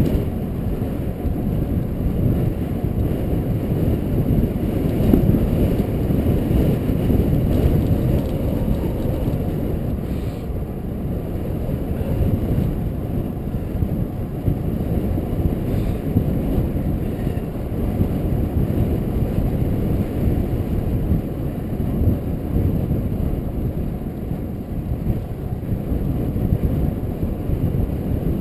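Wind buffeting a bicycle-mounted camera's microphone during a downhill road descent, a steady low rumble with no pauses.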